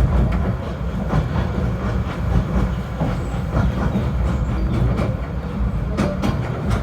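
Snowdon Mountain Railway rack train running: a steady low rumble with scattered sharp clacks, the clearest about six seconds in.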